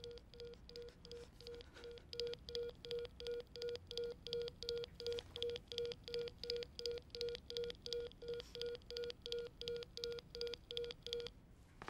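A fast, even run of short electronic beeps, about three and a half a second, which stops about a second before the end.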